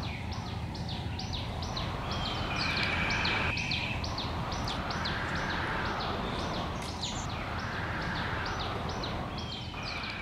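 Outdoor ambience: a bird repeating short, high, falling chirps about two to three times a second, with a brief held whistle twice, over a rushing background noise that swells and fades every few seconds.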